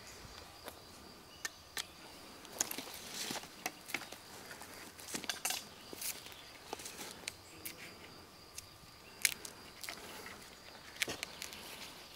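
A knife shaving and scraping bark off a green wooden stick: faint, scattered scrapes and sharp clicks of the blade on the wood.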